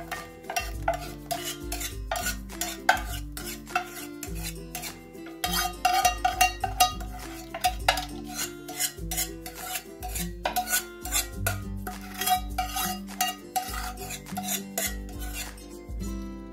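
A metal spoon scraping and knocking against the inside of an aluminium pot, scooping thick cooked milk pudding into a square tin: a quick, irregular run of clinks and scrapes.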